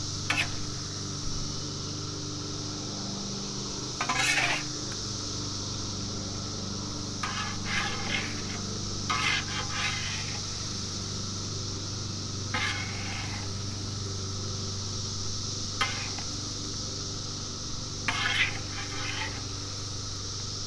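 A metal spatula scraping and clinking across a Blackstone's steel griddle top in about seven short strokes as wings are scooped up onto a plate. A steady high drone of cicadas runs underneath.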